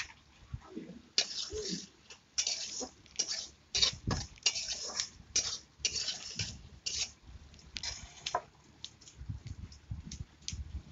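Metal spatula scraping and stirring chopped onions and chillies in oil in a metal kadai: a quick run of repeated scrapes against the pan, giving way to lighter, sparser strokes after about eight seconds.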